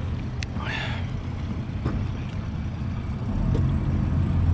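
Outboard boat motor running at low speed: a steady low hum that grows louder a little over three seconds in.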